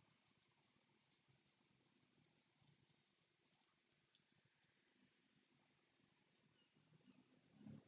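Near silence with faint high-pitched chirping from a forest nature-sound track: a quick run of chirps in the first few seconds, then scattered single chirps.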